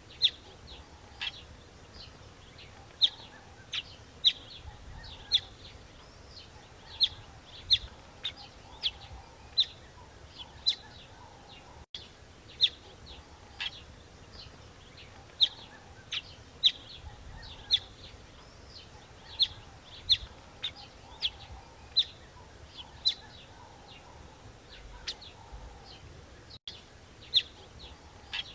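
Bird chirping: short, sharp, high chirps repeated irregularly, about one or two a second, over a faint steady background hiss.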